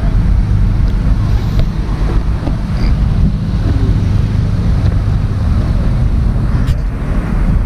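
Wind buffeting an action camera's microphone: a loud, steady low rumble.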